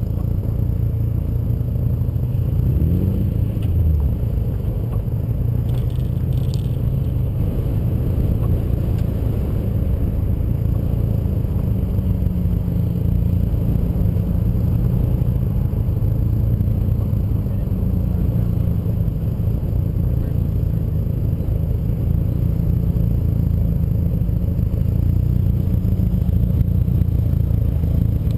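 Car driving at a steady speed, heard from a camera mounted on its hood: a continuous low engine drone mixed with road and wind rumble, with a brief rise in engine pitch about three seconds in.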